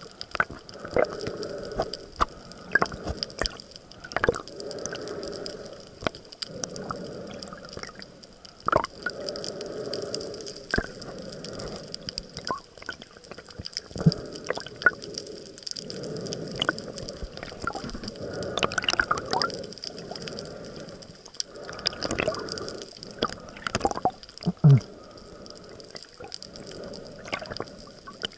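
Underwater sound of a snorkeling swim: muffled water swishing and gurgling in slow swells every few seconds, with scattered sharp clicks and crackles.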